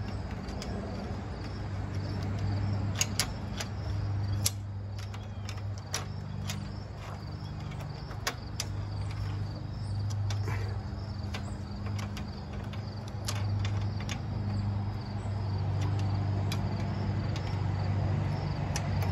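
Scattered sharp metal clicks of a hand tool against the Jeep 4.0 straight-six's lifter bores as the hydraulic lifters are swapped, over a steady low hum that swells and fades and faint insect chirping.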